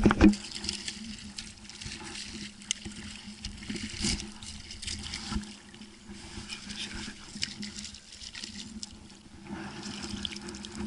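Harbour water sloshing and splashing with small irregular crackles, over a steady low hum.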